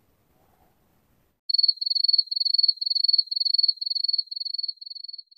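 An insect chirping, like a cricket: a high, even trill broken into rapid chirps about three a second, starting suddenly about a second and a half in and fading toward the end.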